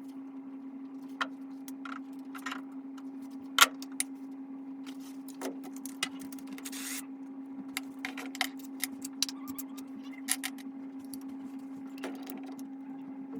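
Scattered sharp metallic clinks and taps of tools and small engine parts being handled, the loudest about three and a half seconds in, over a steady low hum.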